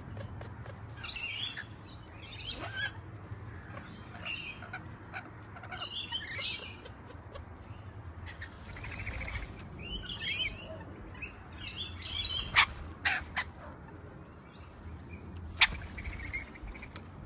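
Rainbow lorikeets chattering in short bursts of shrill, warbling chirps, every second or two. A few sharp clicks come in the second half, the loudest near the end, over a low steady hum.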